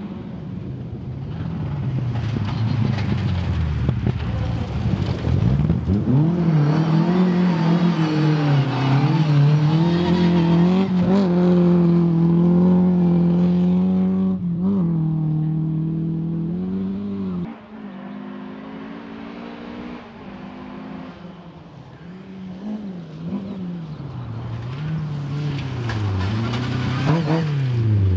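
Rally car engine at full throttle on a gravel special stage: the note climbs, holds high with brief dips at gear changes, then drops away abruptly about two-thirds through. After that an engine revs up and down repeatedly, growing louder as a car approaches near the end.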